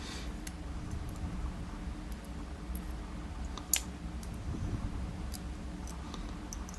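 Scattered light clicks and taps of a euro lock cylinder being taken apart by hand, with one sharper click about halfway through, over a steady low hum.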